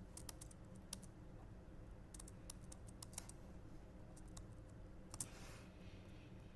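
Light, sharp clicks and taps, irregularly spaced, as small toy train coaches are pushed together and coupled, with a short scrape a little past five seconds in.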